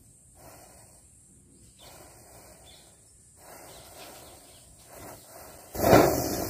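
Faint fizzing of a burning matchstick chain, then about six seconds in a ground firework ignites with a sudden loud rushing hiss as it sprays a jet of sparks.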